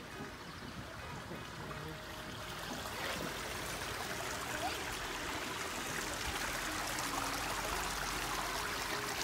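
Water trickling and splashing over rocks into a garden pond from a small waterfall, growing louder from about three seconds in.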